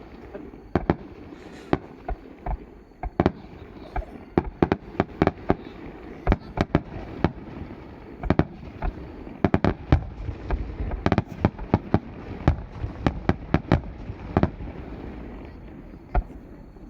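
Aerial fireworks bursting in rapid succession: dozens of sharp bangs, many close together, over a continuous low rumble, thinning out near the end.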